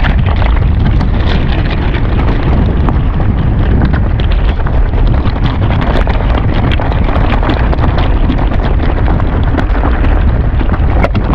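Strong wind buffeting the microphone in a loud, steady, rumbling roar, with many scattered clicks and rattles over it.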